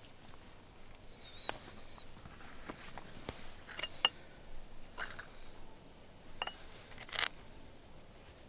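Small metal caps and cylinders clinking and clicking as they are handled and set down on a concrete slab: a few sharp, separate light clinks, some with a brief metallic ring, the loudest near the end.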